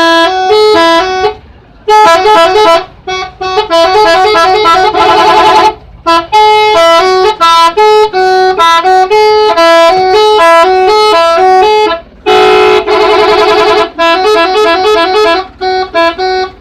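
Telolet horn, the multi-tone musical horn fitted to Indonesian buses, playing a fast melody of short stepped notes with brief pauses. Two longer chords are held, about a third of the way in and again about three quarters of the way through.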